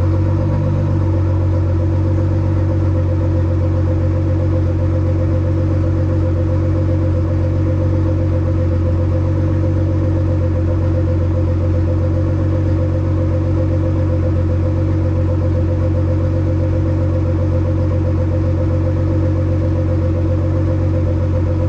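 Tuned Nissan R35 GT-R's twin-turbo V6 idling steadily, the pitch settling down about a second in after a rev.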